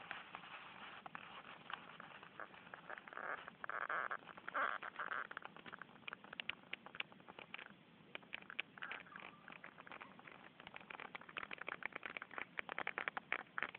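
Footsteps crunching and rustling through dry leaf litter and undergrowth, a dense run of irregular crackles and snaps, heard faintly through a phone microphone.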